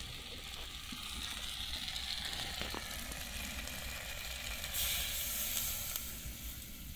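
Goulash ingredients, with sweet paprika and goulash spice, frying with a steady sizzle in a cauldron over a campfire, with a louder stretch of hiss about five seconds in.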